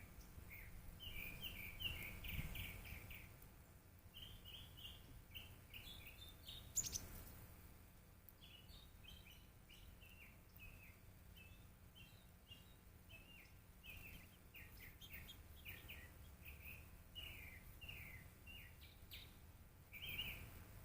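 Small birds chirping: many short, quick notes, often in fast runs, kept up through the whole stretch. One sharp click about seven seconds in.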